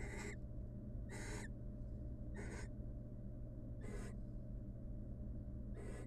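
Barn owl giving short rasping hiss calls, the species' snore call, five in a row about one every second and a half, over a steady low hum.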